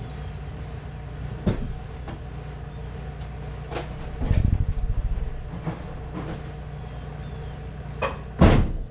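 Scattered knocks and a rattle of something being handled, then near the end a loud bang as something strikes the body of a parked car. A steady low hum runs underneath.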